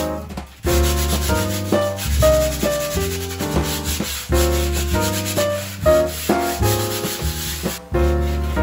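Sandpaper rubbed by hand back and forth over a gesso-primed board, in repeated short strokes, with background music playing over it.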